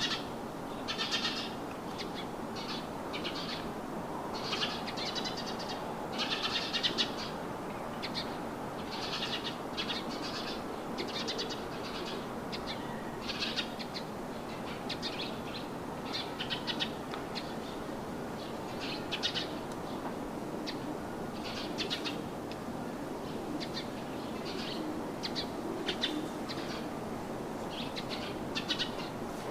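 Songbirds chirping and trilling in short, rapid bursts, one or two a second, over a steady rushing background.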